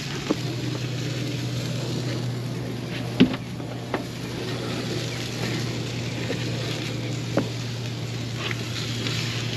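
Boat engine idling with a steady low hum, broken by a few sharp clicks, the loudest about three seconds in.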